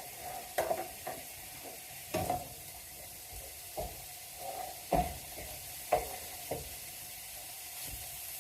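Mince frying in a pan with a steady faint sizzle, stirred with a utensil that scrapes and knocks against the pan about seven times at uneven intervals.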